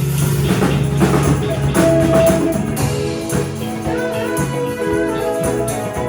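Live band playing an instrumental passage: held melodic notes over a bass line, with regular percussion strikes.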